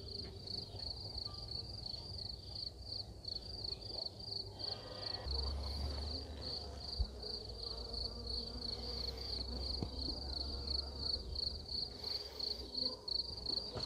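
A high, evenly pulsed insect trill runs steadily over the soft hum of honeybees around an opened hive, with a low rumble from about five to ten seconds in.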